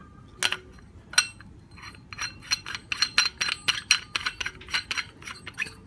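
Metal lightsaber emitter and hilt parts clinking and scraping as a four-claw emitter is fitted and screwed on: a couple of separate clicks, then a quick run of clicks about three or four a second that stops near the end.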